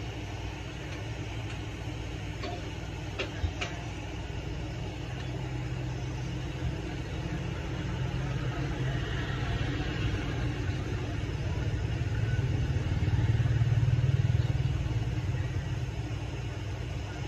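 Low, steady engine rumble, like a motor vehicle running nearby, growing louder about twelve seconds in and easing off near the end. A couple of faint clicks come about three seconds in.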